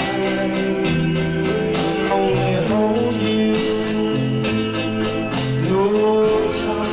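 Music from a 1959 song recording: held, gliding sung notes over guitar accompaniment.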